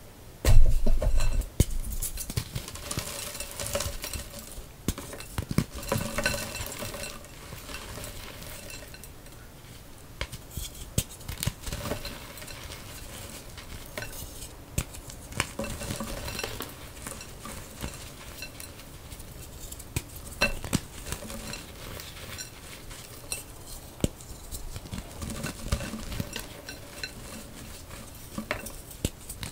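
Molded blocks of reformed gym chalk snapped and crushed by hand, with a loud crack about half a second in, then irregular crunching and crumbling as the chalk breaks down into powder.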